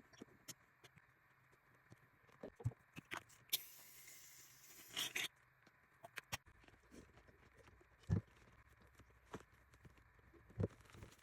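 Scattered small clicks, taps and knocks of containers and utensils being handled for making slime, with a brief hiss lasting about a second, about three and a half seconds in, and a short louder rustle soon after.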